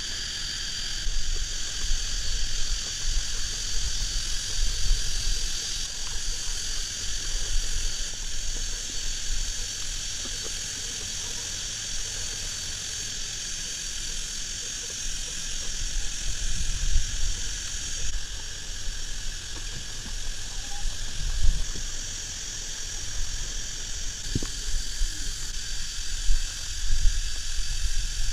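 Steady, high-pitched chorus of forest insects, unchanging throughout, with a low, uneven rumble of wind on the microphone and a few soft handling bumps.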